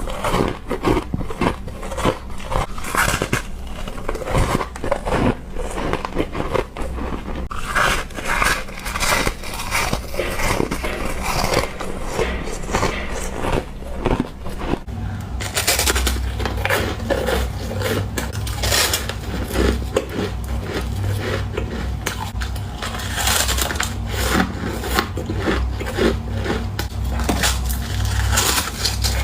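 Ice being bitten and chewed close to the microphone: a dense run of crunches and crackles. A low hum comes in about halfway through.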